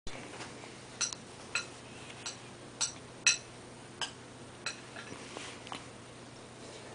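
A bout of hiccups: about ten short, high-pitched hiccups, roughly one every half to three-quarters of a second, with the loudest about three seconds in.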